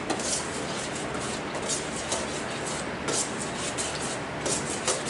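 A utensil scraping and clinking irregularly against a metal bowl while seasoned homemade butter is stirred, over a steady background noise.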